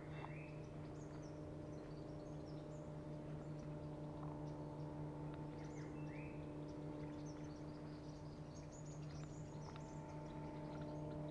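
Birds chirping: many short high chirps, and twice a short call that drops in pitch. Beneath them runs a steady low hum.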